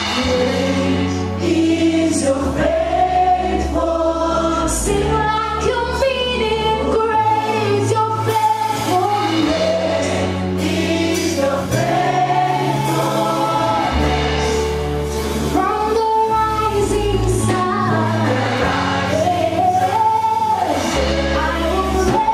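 A choir singing a gospel worship song over instrumental backing, with a bass line that moves to a new note every couple of seconds.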